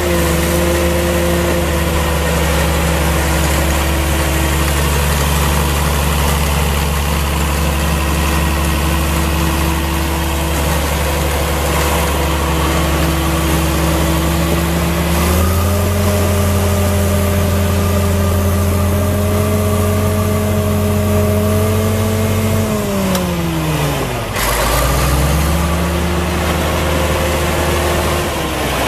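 Caterpillar D5 crawler dozer's diesel engine running steadily as the machine drives. About halfway through the revs step up and hold. A few seconds later they sag sharply to a low point before picking back up.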